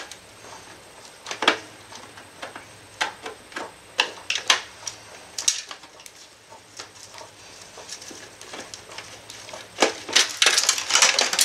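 Scattered clicks and knocks of a screwdriver working at a stuck screw in a laser printer's sheet-metal chassis, with a denser clatter near the end.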